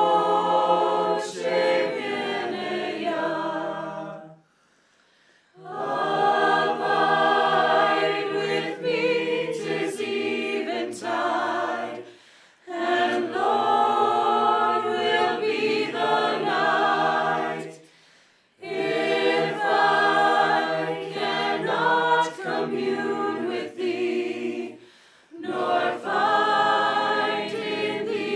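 Small mixed choir of men and women singing a hymn a cappella, in long phrases with short breaks between them.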